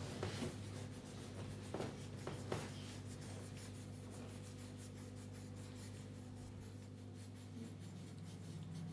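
Coloured pencil scratching back and forth on colouring-book paper as it shades in an area, with a few sharp taps in the first few seconds. A steady low hum runs underneath.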